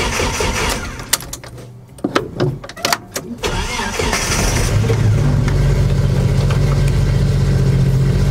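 Jeep Wrangler YJ engine starting on a battery revived by a pulse charger's repair mode. Loud engine-like noise breaks off about a second in, a few sharp clicks follow, then about four seconds in the engine catches and settles into a steady idle.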